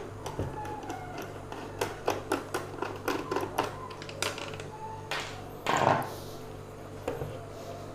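Irregular clicks, taps and clatter of a mixer grinder being dismantled with a screwdriver, screws and plastic parts knocking together. There is a short scraping rustle about six seconds in, over a faint steady low hum.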